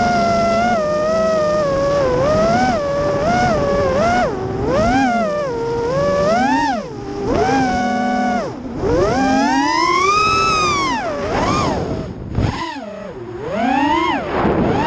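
Racing quadcopter's brushless motors whining, the pitch sweeping up and down again and again as the throttle is punched and eased through turns. There is one long high climb about ten seconds in, and a short drop as the throttle is chopped about twelve and a half seconds in before the motors spool back up.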